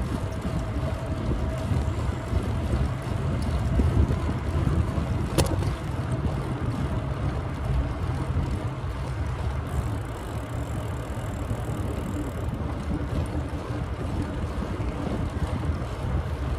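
Wind buffeting the microphone of a moving bicycle, a steady low rumble, with one sharp click about five seconds in.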